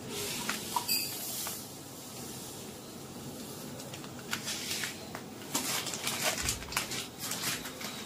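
Sugar sand being scooped and poured with a plastic cup: scattered rustling and light clicks about a second in and again through the second half, over a steady low background noise.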